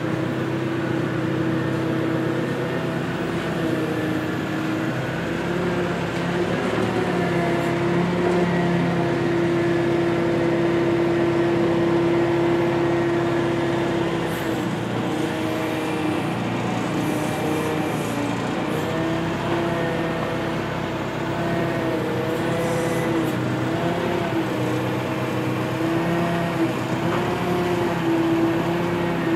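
Forklift engine running steadily, its note dipping and rising again and again in the second half.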